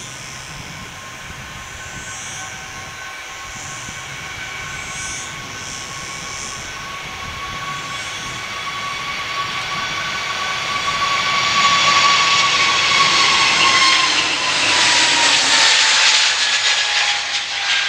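Airbus A320neo's twin turbofan engines at take-off thrust during the take-off roll. A steady whine over a jet roar grows louder as the airliner approaches, and the whine drops in pitch near the end as it passes.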